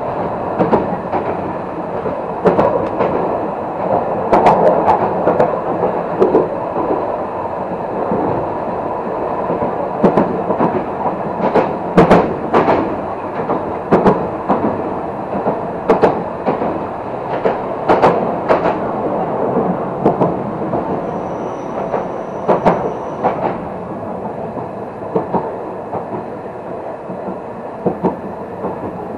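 Fukui Railway Fukubu Line tram running along the track, heard from on board: a steady rolling rumble with sharp wheel clacks over rail joints every second or so. A thin high whistle, likely wheel squeal, sounds for about two seconds about two-thirds of the way through.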